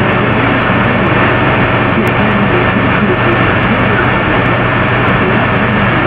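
Computer microphone recording of a quiet room: a loud, steady hiss and rumble with a low hum, cut off above about 4 kHz.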